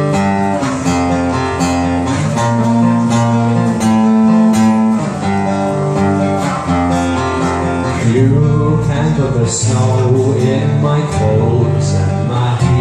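Music: an acoustic guitar plays plucked and strummed chords as an instrumental song intro, with a fuller low end coming in about eight seconds in.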